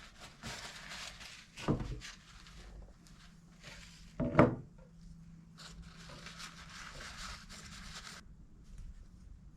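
Scratchy rubbing and scraping as a tight new rubber seal is worked onto the brake master cylinder's piston by hand, with two short louder sounds, one near 2 seconds in and one about halfway through. The rubbing stops about a second before the end.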